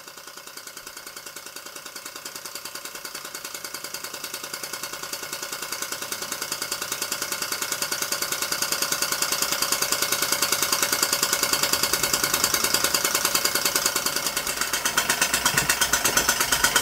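Märklin model donkey steam engine running with a fast, even mechanical beat as it drives a belt-driven model band saw cutting brass. It gets gradually louder as it picks up speed with rising steam pressure.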